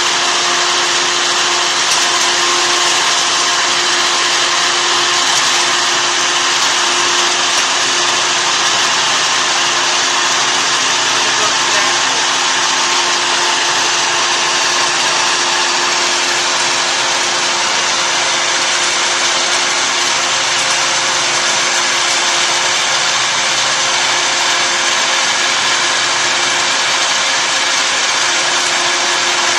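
Stainless-steel cocoa powder grinding machine running steadily under load, milling cocoa cake into fine powder: a loud, even whirring hum with a constant whine over it.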